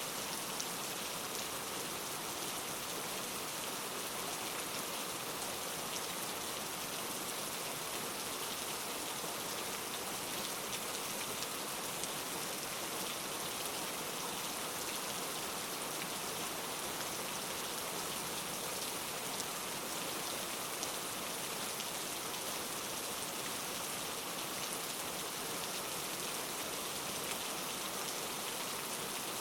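Steady rainfall, an even hiss with fine scattered drop ticks, used as a sleep sound.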